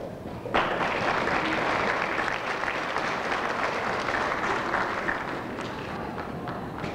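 Audience applauding, starting abruptly about half a second in and tapering off near the end.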